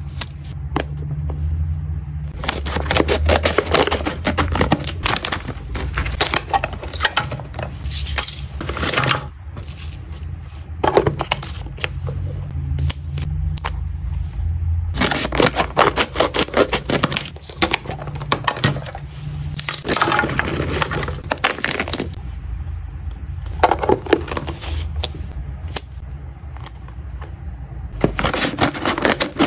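Close-up handling of pet-treat packaging: paper labels peeled off a roll and pressed on, plastic storage boxes with snap lids handled, and a plastic treat pouch crinkling. The sound is dense, irregular crinkles, clicks and taps, with short pauses between spells of handling.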